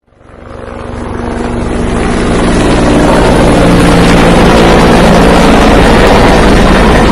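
Helicopter engine and rotor running, with a fast low chop, fading in over the first two or three seconds and then holding steady and loud.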